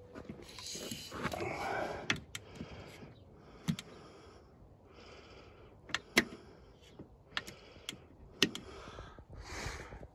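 Handling noise from a tape measure being laid out: scattered sharp clicks and light knocks, with a few short soft hissy rustles in between.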